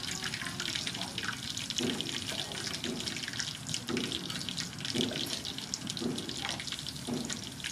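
Steel cleaver chopping limes into wedges on a wooden cutting board, a dull chop about once a second, over a steady rushing hiss.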